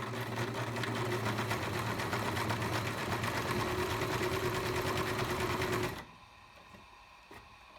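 A Singer 5137 sewing machine, a 1980s model with metal gears, sewing a straight stitch at slow speed: a steady motor hum under a fast, even clatter of the needle mechanism, a bit noisy. It stops about six seconds in.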